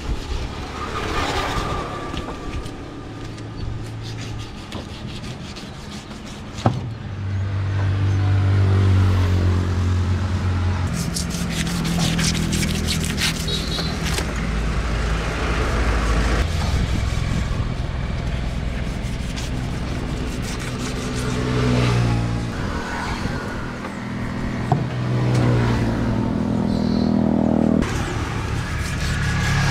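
Engines of road vehicles passing by, rising and falling in pitch as they come and go. About eleven seconds in there is a run of quick scraping strokes, a large knife working over the scales of a big catla.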